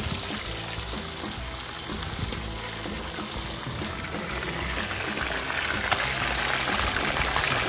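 Background music over a steady hiss of oil sizzling in a disco pan of frying chicken. The sizzle grows louder in the second half.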